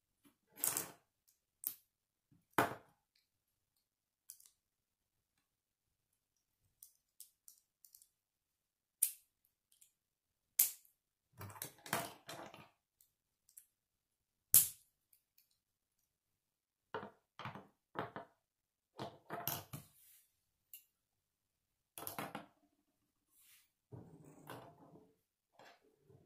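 K'nex plastic rods and connectors clicking and snapping together as they are fitted by hand: scattered sharp clicks with quiet gaps between them, and a few short spells of pieces rattling and knocking together.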